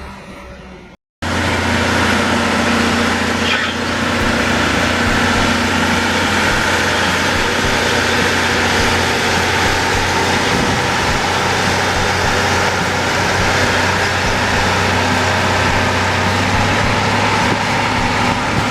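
Heavy diesel engine of a piece of earthmoving equipment running steadily and loudly, starting after a brief silent cut about a second in.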